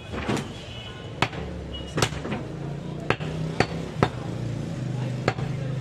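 A large butcher's knife chopping mutton against a wooden chopping block: about eight sharp, irregularly spaced strikes. A low steady hum runs underneath.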